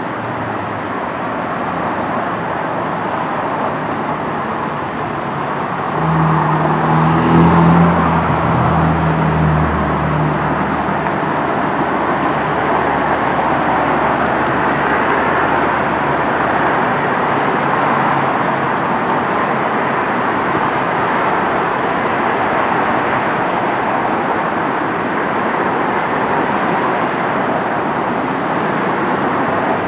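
Steady road traffic noise. A heavy engine's low drone comes in about six seconds in and fades out by about eleven seconds.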